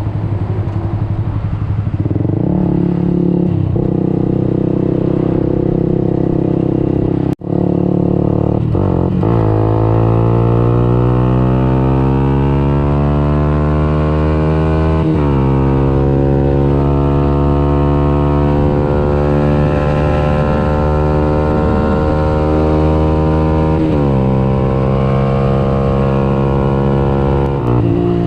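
Yamaha YZF-R 125's single-cylinder four-stroke engine, through a Radical Racing exhaust with the dB-killer removed, pulling hard through the gears. The pitch climbs steadily and drops sharply at each of several shifts. The sound cuts out for an instant about seven seconds in.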